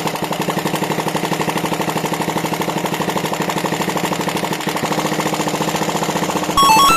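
An engine running steadily with a rapid, even beat. Near the end, a short jingle of stepped electronic tones plays over it.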